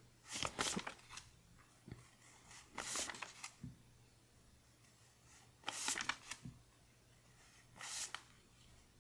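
Paper one-dollar bills rustling as they are moved one at a time off a hand-held stack: four short, crisp rustles, about one every two to three seconds.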